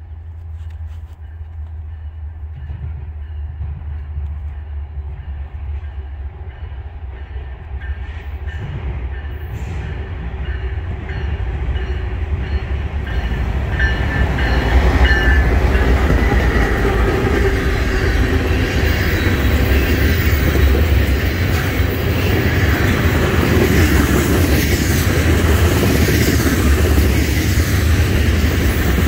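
Diesel freight locomotives of a Norfolk Southern train approaching and growing steadily louder, passing close by about halfway through. After them comes the steady rumble and wheel clatter of tank cars rolling past.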